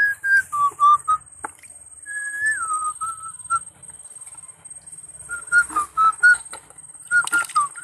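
A person whistling a short tune in clear notes that step and glide up and down, in three or four phrases with gaps between them. Scattered clicks and knocks come through alongside the whistling.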